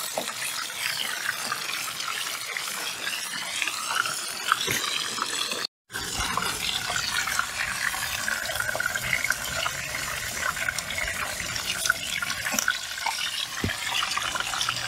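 Cornstarch-coated whole flounder shallow-frying in hot oil: a steady, crackling sizzle as oil is spooned over the fish. The sound cuts out for a moment about six seconds in.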